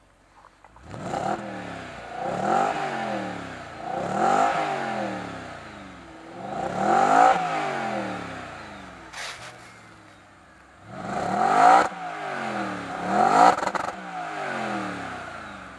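Audi RS5's 4.2-litre V8 blipped through its optional sport exhaust, about six sharp revs that rise and fall back, with a short crack near the middle.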